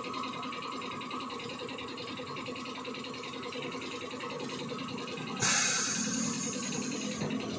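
Steady low shop background, then about five seconds in a sudden sharp hiss of air for nearly two seconds, in a motorcycle tyre-changing shop.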